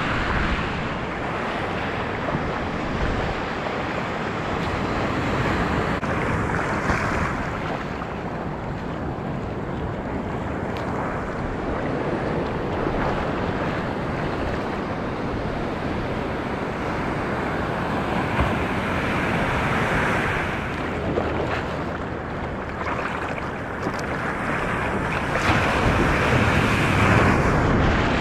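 Ocean surf and choppy water washing around a camera held just above the surface, with wind buffeting the microphone. The wash gets louder near the end.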